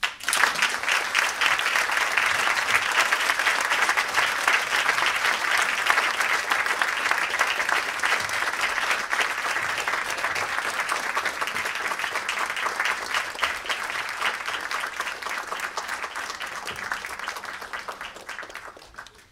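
Audience applauding, many hands clapping at once; it starts abruptly and dies away near the end.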